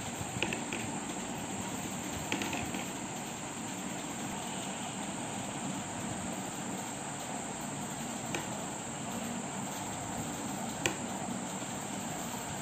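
Knitting needles clicking lightly a few times while purl stitches are worked, over a steady background hiss.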